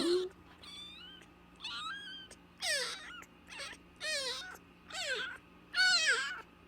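Very young nursing kitten mewing over and over: about seven short, high-pitched cries, each falling in pitch, with the loudest one near the end.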